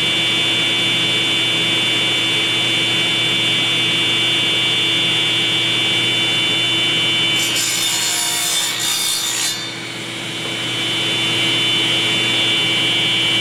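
Table saw running with a steady whine; about seven seconds in, the blade cuts through a small piece of oak for about two seconds, a hissing rasp that stops abruptly.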